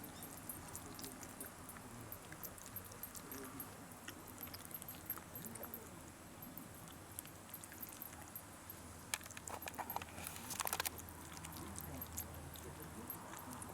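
Shiba Inu eating a treat: scattered small licking and chewing clicks, with a quick run of sharper clicks and clatter about nine to eleven seconds in.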